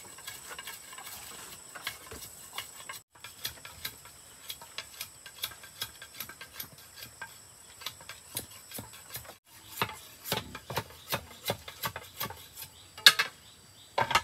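Irregular light knocks and clicks of hand work, growing louder and sharper over the last few seconds, with a faint hiss behind; the sound breaks off abruptly twice.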